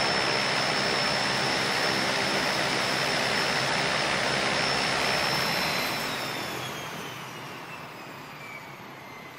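Airliner engines running with a steady high whine, then winding down from about six seconds in, falling in pitch and fading.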